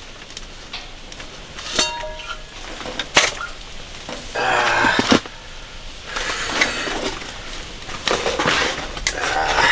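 Handling of dishes: a few sharp clinks of a utensil against a dish, one ringing briefly, and three stretches of scraping and rustling.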